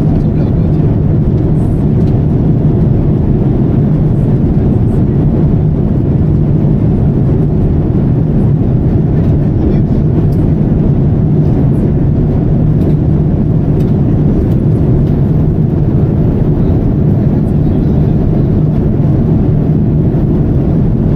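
Steady low rumble inside a Boeing 787 airliner cabin, the engines and air conditioning running without change.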